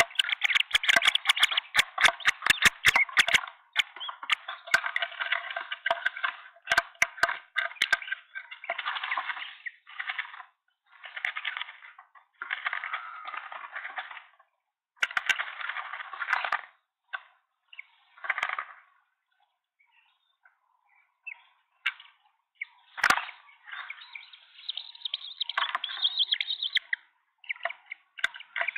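Green wood hoopoes flapping their wings and scrabbling inside a wooden nest box: bursts of rapid wing-beat rustling lasting one to three seconds, broken by pauses. Sharp knocks from wings or claws striking the box come thickly in the first few seconds, and there is a single loud one later on.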